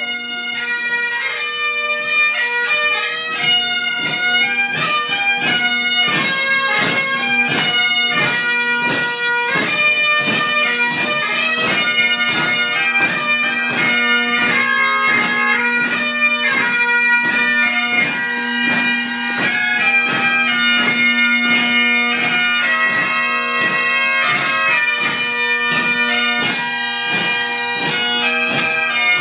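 Three Great Highland bagpipes playing a tune together: a steady drone under a fast-moving chanter melody with quick ornamented notes.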